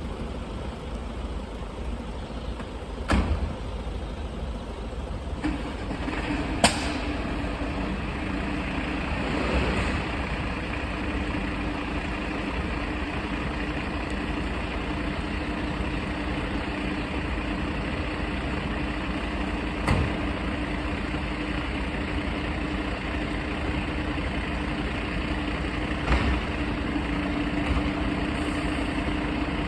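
Diesel engine of a Mercedes Atego fire engine running steadily. A steady engine note sets in about five seconds in. A few sharp knocks are heard over it, the loudest about a third of the way in.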